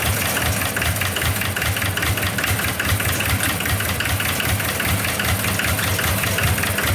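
Tractor engine idling steadily, with a regular pulsing beat.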